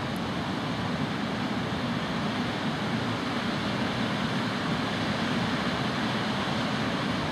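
River water rushing steadily over shallow rapids, an even, unbroken roar.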